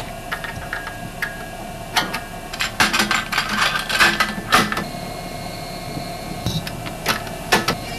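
Cassette deck being operated by hand: a string of sharp mechanical clicks and clunks as the power switch is pressed, the cassette is pushed into the tape well and the keys and knobs are worked, over a low steady hum.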